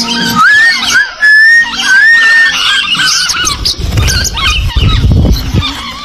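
A flock of lovebirds chattering with shrill chirps and squeaks, and a clear wavering whistle in the first couple of seconds. Partway through there is a burst of low rushing noise lasting about two seconds.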